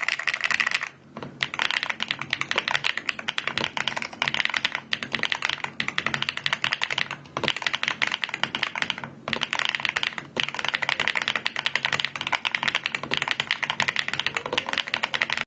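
Fast typing on a mechanical keyboard fitted with magnetic switches and a PC top case, a quick run of crisp key clacks with a few short pauses.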